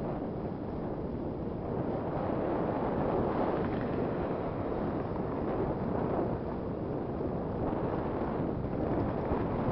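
Wind buffeting the microphone of a camera on a moving bicycle: a steady rushing noise with no distinct events.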